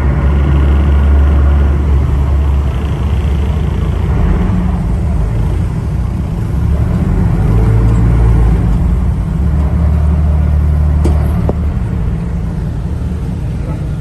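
Sightseeing cruise boat's engine running with a deep, steady rumble that swells and eases a few times.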